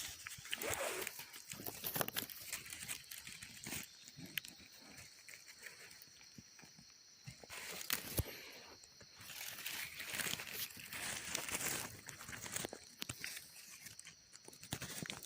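Irregular rustling and crunching of leaf litter and undergrowth, with scattered sharp clicks, as someone moves and works at ground level. A steady high-pitched buzz runs behind it, dropping out for about a second near the middle.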